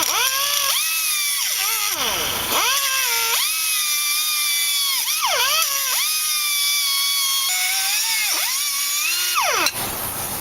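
Handheld power cutter's motor whining as it cuts through a screw sticking out of a truck chassis. Its pitch sags sharply three times as the blade bites under load and then climbs back, and it cuts off near the end.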